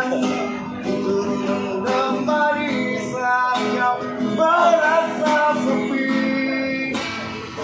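A man singing to a strummed Yamaha acoustic guitar. His held notes bend in pitch over steady strumming.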